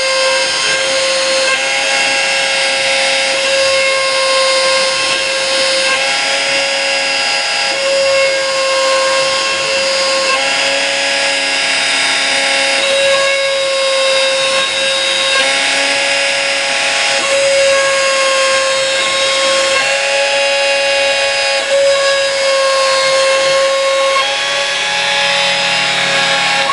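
Homemade CNC table milling a printed circuit board: the cutting spindle runs steadily at one pitch, while the stepper motors whine in tones that change every two to three seconds as the axes move from one cut to the next.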